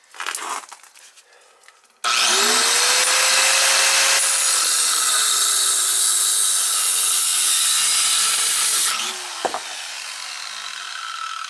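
Angle grinder cutting through 1-inch copper water pipe. About two seconds in the motor spins up and a loud, hissing grind runs for about seven seconds. Then the trigger is released and the motor's pitch slides down as the disc winds down.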